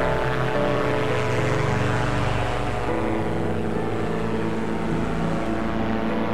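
Powered parachute's engine and propeller running steadily in flight, a continuous drone; the sound turns duller about halfway through.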